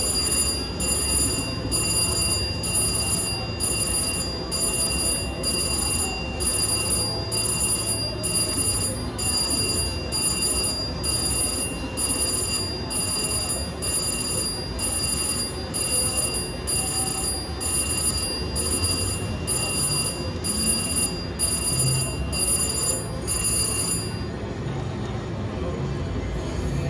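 VGT slot machine's win rollup: an electronic bell ringing over and over in an even rhythm while the credit meter counts up a 250-credit win. The ringing stops a few seconds before the end, under a steady hum of casino background.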